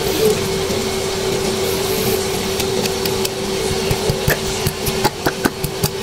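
Pork ribs sizzling in a pan as banana ketchup is squeezed over them from a plastic squeeze bottle, under a steady hum. Sharp pops and clicks come thicker near the end.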